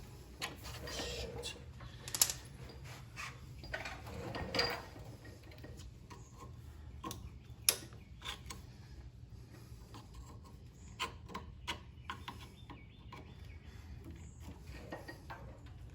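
Hand tools working at a metal brake hose retaining clip: irregular sharp metallic clicks and short scrapes, the loudest about two seconds in and again past the middle, over a steady low hum.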